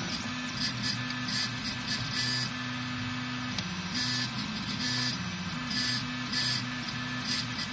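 Tevo Black Widow 3D printer printing: its stepper motors whine at pitches that shift step by step as the print head moves, with short hissy blips mixed in.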